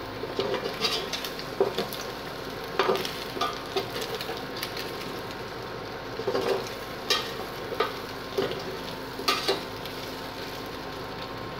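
A metal spoon stirring diced potatoes and pork in a stainless steel pot, scraping and clinking against the pot at irregular moments, over a steady sizzle of the potatoes pan-frying in oil.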